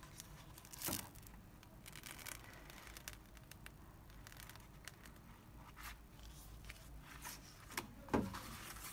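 Perforated PVC stretch-ceiling film rustling and crinkling as it is flexed and folded by hand, with two louder crackles, about a second in and near the end.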